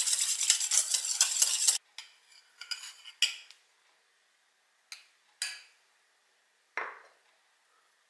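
Wire whisk beating egg yolks and milk in a stainless steel bowl, a rapid clatter of the whisk against the metal that stops abruptly after under two seconds. Then a few separate clinks and knocks from the metal sieve and bowl.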